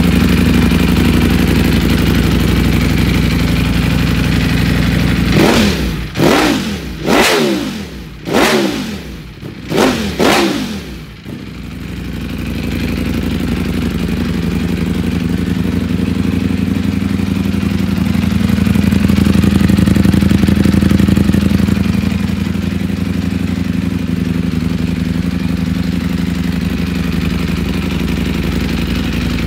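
Ducati Panigale V4's 1103 cc V4 engine breathing through an Akrapovic full exhaust system with a re-flashed racing map, idling. About five seconds in it is blipped five or six times in quick succession, each rev rising and falling in pitch, then it settles back to a steady idle that lifts slightly for a moment later on.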